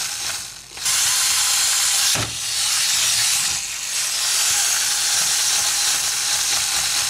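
Clockwork wind-up dinosaur toy running: its spring-driven gear mechanism gives a continuous ratcheting buzz, dipping briefly about half a second in, with a single knock about two seconds in as the toy tumbles.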